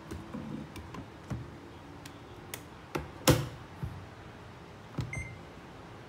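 Electric rice cooker being loaded and set: the inner pot knocks and clicks as it is seated, the lid shuts with a thump about three seconds in, and a button press gives a short beep about five seconds in.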